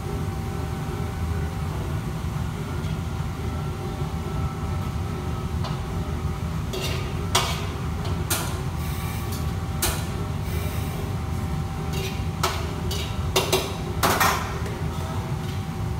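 Commercial kitchen cooking: a steady low rumble with scattered sharp clatters of metal cookware and utensils, a handful of them in the second half and the loudest just before the end.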